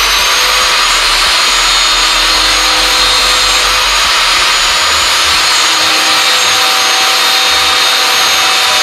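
Power grinder running steadily under load, grinding the rivet heads off a steel motorcycle drive chain link so the pins can be punched out to shorten the chain. A harsh, steady hiss with a high whine over it.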